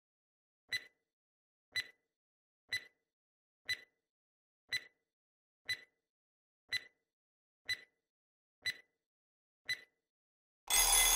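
Countdown-timer sound effect: ten short ticks, one a second. Near the end, a louder harsh buzz of about a second marks time running out.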